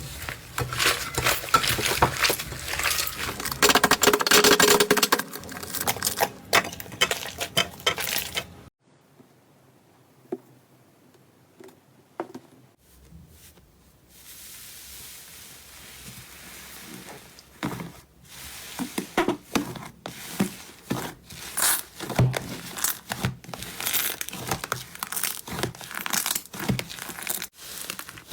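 Slime being squeezed, stretched and pressed by hand, giving dense crinkly crackling and sticky clicks. The crackling drops away to near quiet for about five seconds a third of the way in, then comes back as scattered sharp crackles over a soft hiss.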